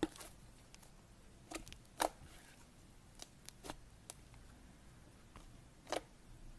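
Pink butter slime pressed and squeezed by fingers, giving faint, scattered sticky clicks and pops, about eight over six seconds, the loudest at the very start and about two seconds in.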